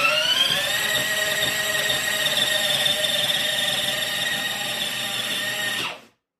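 Electric drive motor of a 24-volt kids' ride-on motorcycle whining under the twist throttle: the pitch climbs quickly to full speed in about the first second, holds steady, then cuts off suddenly near the end.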